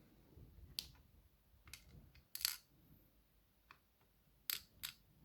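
Small metal pins from a disassembled ASSA 500 pin tumbler lock clicking as they are taken out and dropped onto a hard surface: about seven light, separate clicks, the loudest about two and a half seconds in and two close together near the end.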